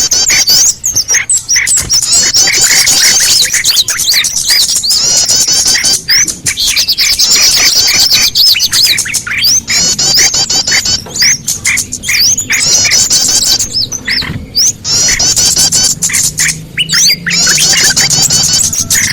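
Bird-lure (pikat) recording of many small birds chirping and twittering at once. Rapid high chirps overlap continuously, with a lower note repeating beneath them and a few brief breaks.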